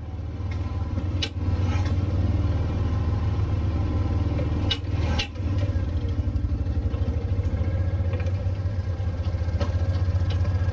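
Off-road vehicle engine running steadily at low speed on a rough forest trail, with a few sharp knocks and rattles.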